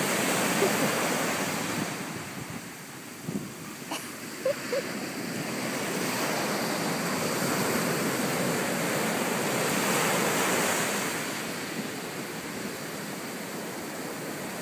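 Ocean surf breaking and washing up a sandy beach, a steady rush that swells and eases over several seconds. A click and a couple of brief faint squeaks come about four seconds in.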